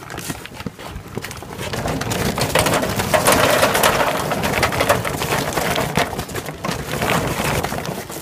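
Royal Oak charcoal briquettes poured from the bag into a chimney starter: a dense rattling clatter of many small impacts that builds up over the first couple of seconds and is loudest about three to four seconds in.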